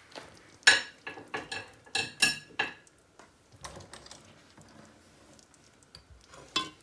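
Metal serving utensils clinking against a pot and a ceramic plate: a quick run of sharp, briefly ringing clinks in the first three seconds, a few faint rattles, then one more clink near the end.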